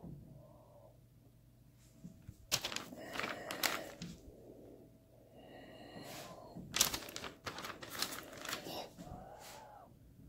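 Two bursts of sharp clicks and crackles, about two and a half seconds in and again about seven seconds in, with a breath through a respirator mask near the end.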